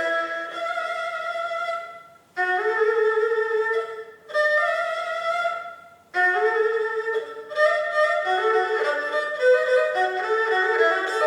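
Erhu playing a slow melody of held, bowed notes that slide into pitch, broken by short pauses, then moving into a quicker run of notes in the second half.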